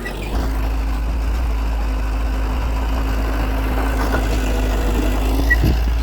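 Heavy earthmoving machine's diesel engine running steadily at a low, even pitch, with a brief knock about five and a half seconds in.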